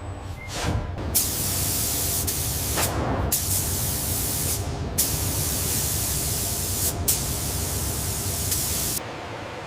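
A spray hissing hard in four long bursts separated by short breaks, over a steady low hum of machinery.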